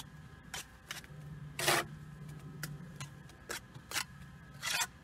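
A bricklayer's steel trowel scraping and tapping on wet mortar and brick: about seven short, sharp scrapes and taps at irregular intervals, the loudest about a second and a half in and another near the end.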